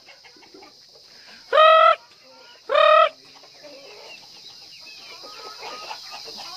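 A flock of chickens in a pen: one gives two loud, drawn-out squawks about a second apart, then softer clucks and short calls carry on, over a steady high hiss.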